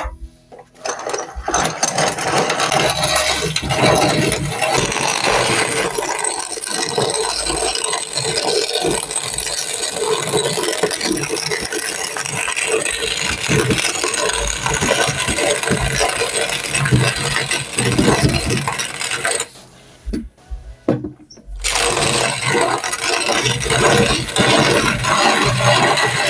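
Corn grinding mill running as dry corn kernels are fed through, with a dense rattling grind. It starts about a second in, stops for about two seconds near the end, then runs again.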